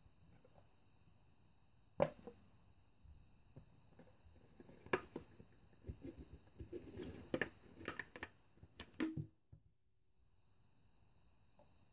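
A cup being handled: a series of irregular clicks, taps and knocks, one sharp one about two seconds in and a busier run of them later, over a faint steady high hiss.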